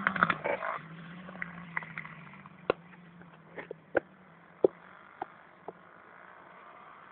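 Distant dirt bike engine fading away across the field, with a few sharp clicks scattered over it.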